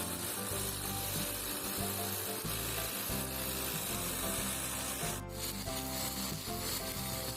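Brush cutter's nylon line cutting through grass, a steady loud hiss and rasp, with background music underneath. The sound breaks off briefly about five seconds in.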